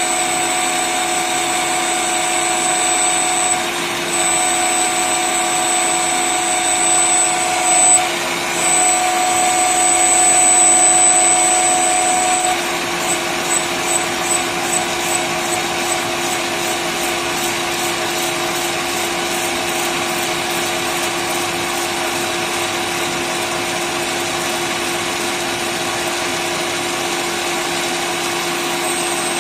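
Small CNC lathe turning a metal bar: spindle and cutting tool running with a steady high whine from the cut. The cut pauses briefly twice, then breaks into a quick series of short pulses for a few seconds before the machine runs on evenly.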